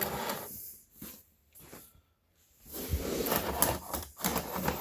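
Handling of a metal balisong (butterfly knife) trainer: clicking, clattering and rattling of its metal handles and parts in two stretches, with a short lull between them.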